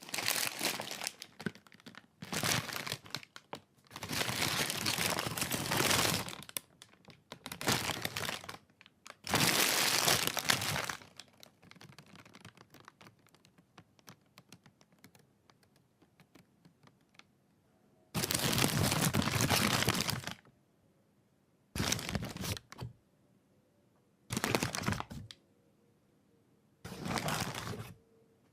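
A paper bag being crunched and crumpled by hand in repeated bouts of one to two seconds, with a stretch of faint scattered crackles of the paper partway through and short pauses between the later crunches.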